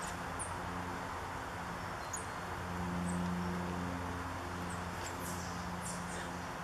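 Scattered thin, very high, short call notes of small songbirds, about eight of them, with a few in quick succession about five to six seconds in. Under them runs a steady low mechanical hum.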